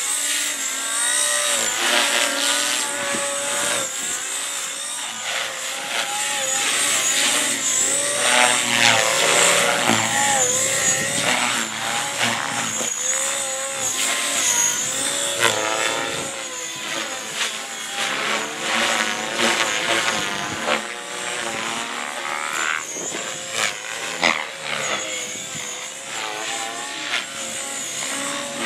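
Gaui X3 electric radio-controlled helicopter flying aerobatics: the whine of its motor and rotor keeps rising and falling in pitch as it manoeuvres.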